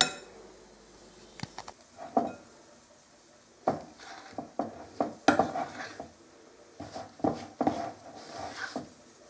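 Soft bread dough being kneaded by hand in a glass bowl: irregular short slaps and knocks against the glass, with a sharp click at the very start.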